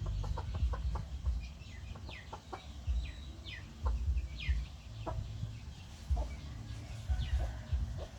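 A small animal's or bird's chirping: about a dozen short, high calls, each falling in pitch, coming mostly in the first five seconds. Faint clicks and a low rumble run underneath.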